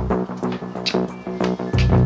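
Background music with a quick, steady electronic beat; a deep bass note comes in near the end.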